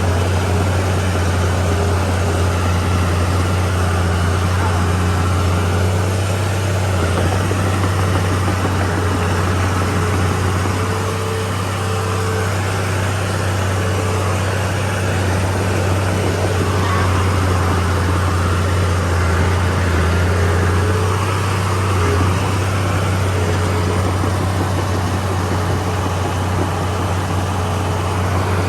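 Heavy diesel engine of earthmoving machinery running steadily at a constant speed, with a low, even hum.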